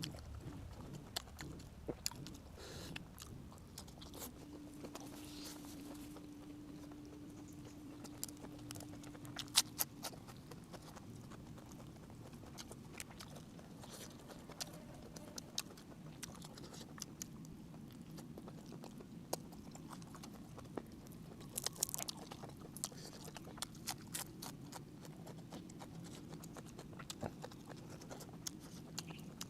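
Close-up chewing of steamed squid with roe, wet mouth sounds with scattered sharp clicks. A low steady hum runs for about five seconds starting about five seconds in.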